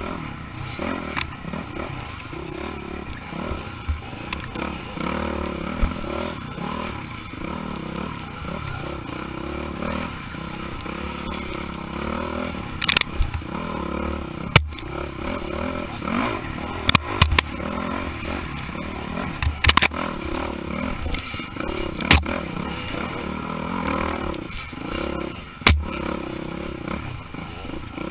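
Dirt bike engine running and revving up and down as the bike is ridden over a rough dirt trail, heard from on the bike. Several sharp knocks and clatters cut through it, most of them in the second half, from the bike jolting over ruts and rocks.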